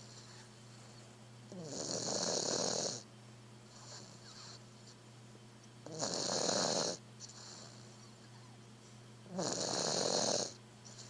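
A small sleeping pet snoring: three long, rasping snores about four seconds apart, with quieter breaths between them.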